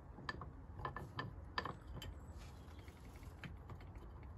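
A few faint, irregular light clicks and taps as new Mintex brake pads are handled and pushed into a Ford Fiesta's front brake caliper.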